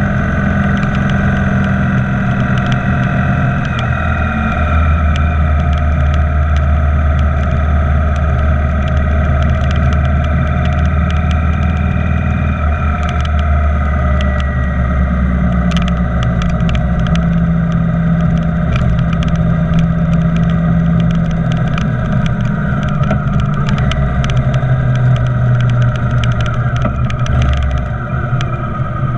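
Motorcycle engine running at road speed with steady wind and road noise. The engine pitch shifts a few times as the speed changes.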